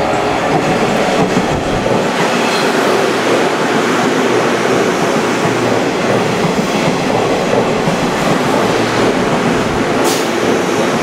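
JR West 201 series electric multiple unit passing through a station platform without stopping: a steady, loud rumble of wheels and carriages going by close at hand. A single sharp click comes near the end.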